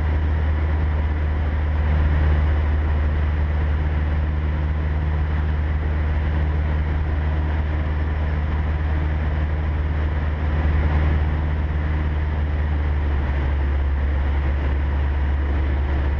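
Cessna 150's four-cylinder Continental O-200 engine and propeller droning steadily in the cabin in cruise flight, mixed with rushing airflow noise.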